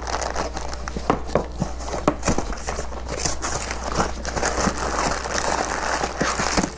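Cardboard LEGO set box being opened by hand: its end flap pulled and torn open, with cardboard scraping and crinkling and many small clicks as the box is handled.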